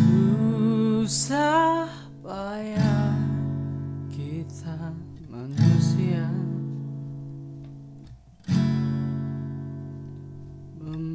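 Background music: an acoustic guitar strums four chords about three seconds apart, each left to ring and fade, with a sliding melody line over the first few.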